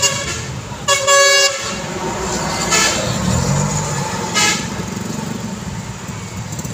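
Busy street traffic: motorcycles, cars and dump trucks running past with a steady engine and tyre rumble. A vehicle horn honks for over half a second about a second in, then gives two short toots later on.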